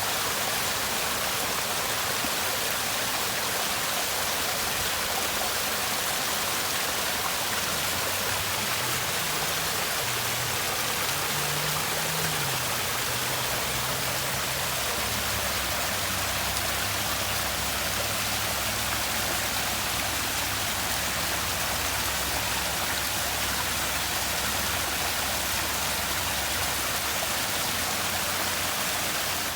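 Water from a garden water feature splashing and running in a steady, even rush.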